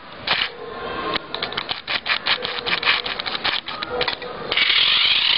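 Battery-powered radio-controlled model car: rapid, irregular clicking and rattling, then about four and a half seconds in its small electric motor starts a steady whirr with a wavering pitch. The battery is running low.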